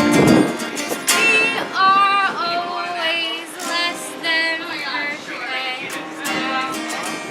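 Singing over a strummed acoustic guitar: a voice holding and sliding between notes above a steady strum.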